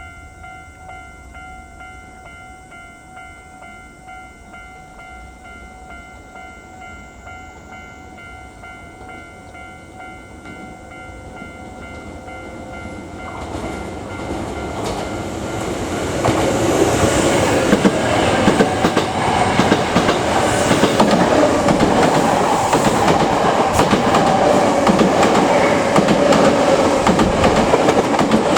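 Level-crossing warning bell ringing steadily, then Hankyu electric commuter trains approaching from about 13 s in and passing close by from about 16 s, loud with wheel clatter over the rail joints.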